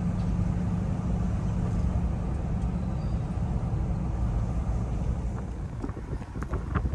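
Camper van driving: a steady low engine hum and road noise, with a few short clicks or knocks near the end.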